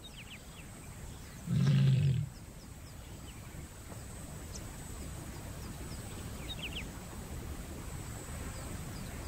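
A lioness gives one short, low call about a second and a half in. It is the call of a female in heat, advertising to males that she is ready to mate.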